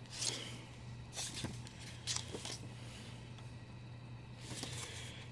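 Comic books being handled and their paper pages flipped: about four short papery rustles, over a faint steady hum.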